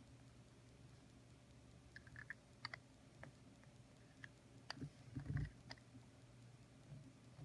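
Faint small plastic clicks of a TWSBI Eco fountain pen's snap cap being pushed onto the barrel and the pen turned in the fingers, with a soft handling thump about five seconds in, over a low steady hum.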